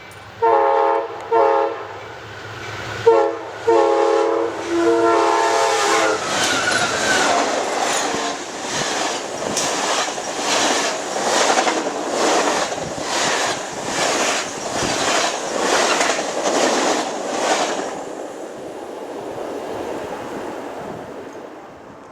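Locomotive air horn sounding several blasts, the last one the longest. Then a passing train's wheels clack over the rail joints at a steady beat, a little over one a second, and the sound fades near the end.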